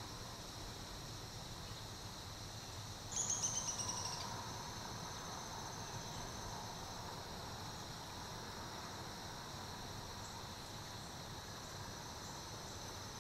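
Steady, high-pitched chorus of crickets and other insects. About three seconds in, a bird gives one short call: a quick run of about eight high notes that drop slightly in pitch, louder than the insects.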